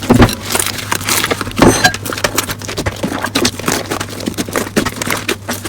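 Slime being squeezed and worked by hand, with a dense run of irregular crackling and popping clicks.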